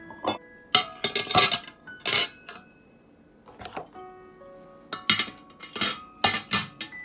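Dishes and glassware clinking and knocking as they are handled and set down: a string of sharp clinks with short ringing, bunched together about a second in and again in the last two seconds, over soft piano music.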